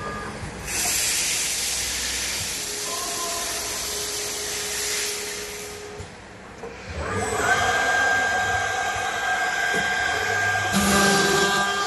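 CNC door lock and hinge slot machine running: a long, loud hiss for the first several seconds, then about seven seconds in a router spindle's high whine comes up to speed and runs steadily, with another short hiss near the end.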